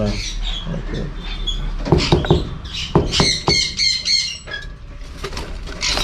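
Lovebirds chirping and squawking, with a quick run of high chirps about three seconds in and a few sharp knocks around it.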